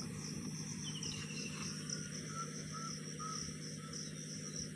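Insects chirring in a steady, pulsing high buzz over the low, even drone of a distant John Deere 5050D tractor's diesel engine working a rotavator in a flooded field. A few faint short chirps come a couple of seconds in.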